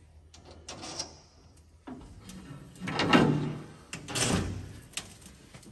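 Small cordless driver running in two short bursts, about three and four seconds in, as it turns a bolt into the grille's mesh panel frame. A few light metal clicks and rattles of hardware come before it.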